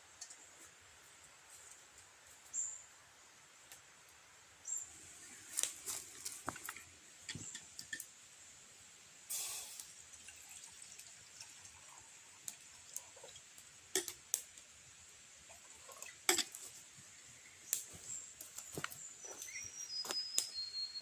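Faint scattered clicks and cracks, with a few short high chirps and, near the end, a run of short high notes stepping down in pitch, over a faint steady high tone.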